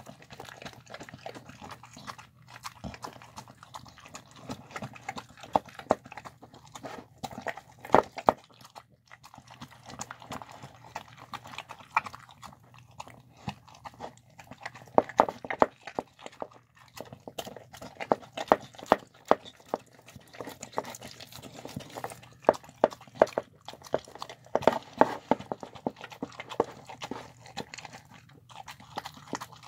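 Dog eating soft food of chicken, rice and cabbage from a bowl: irregular chewing with many sharp clicks.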